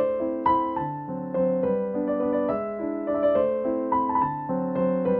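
Background piano music, a steady run of sustained keyboard notes and chords.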